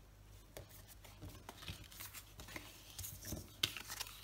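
Paper cards and small items in sheer fabric bags being handled and set down on a wooden table: light paper rustling with scattered soft clicks and taps, the sharpest about three and a half seconds in.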